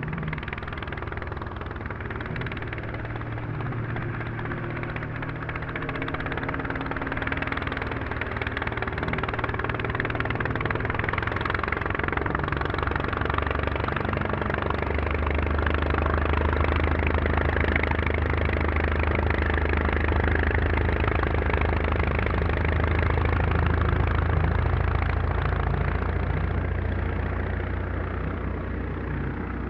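Laser 160 inline twin four-stroke glow engine of a large RC P-51 Mustang model running steadily. It grows louder through the middle and eases off near the end.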